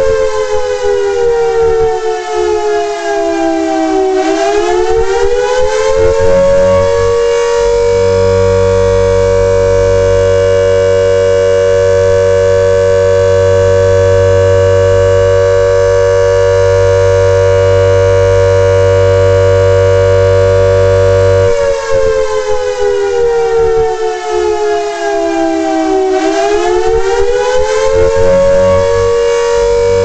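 Warning siren sounding a steady wailing tone that twice sinks in pitch over a few seconds and climbs back, with a long unbroken steady stretch between the two dips.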